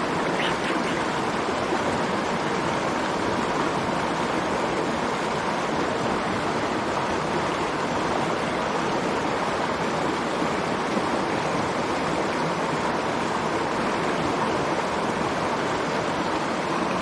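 Small mountain stream, its water rushing steadily with no let-up.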